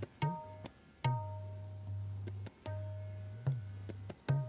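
Instrumental background music: a steady low drone under about seven sharp struck notes, each ringing briefly.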